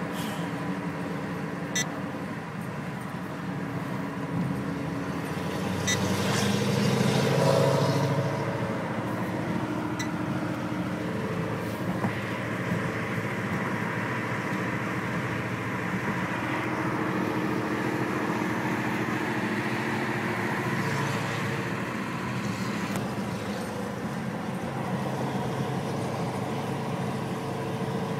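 Pontiac GTO's LS2 V8 running through headers and a catless custom exhaust. It gets louder and rises in pitch about six to eight seconds in, then settles back to a steady drone.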